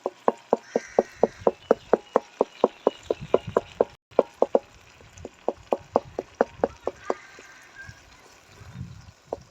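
Boiled, peeled tomatoes being pounded to a pulp: a utensil knocking steadily against the vessel about four times a second, with a brief pause about four seconds in, stopping about seven seconds in, then two last knocks near the end.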